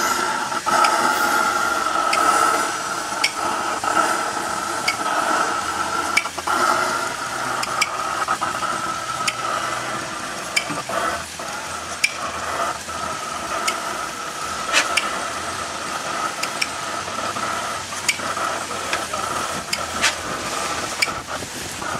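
Steady hiss of a blowlamp heating the hot-bulb vaporiser of a 1908 Hornsby-Akroyd 12 hp oil engine, growing a little fainter over the first ten seconds, with light irregular clicks from the engine.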